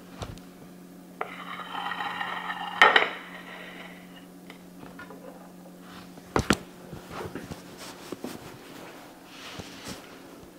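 Dishes and cutlery clattering as a served plate of food is handled: a scraping stretch about a second in, a sharp clink near three seconds and another a little past six, then a few light ticks, over a steady low hum.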